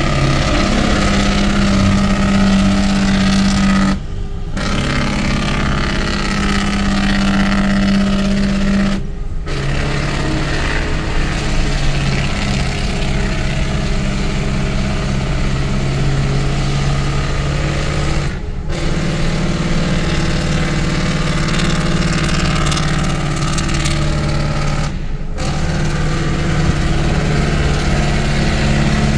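Diesel engine brake (compression/Jake brake) working, a loud steady rattling drone at an even pitch. The pitch drops a step about a third of the way in and comes back up about two-thirds in, broken by four short gaps.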